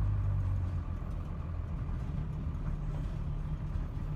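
Vehicle engine and road noise heard from inside the cab while driving: a steady low drone that eases slightly under a second in.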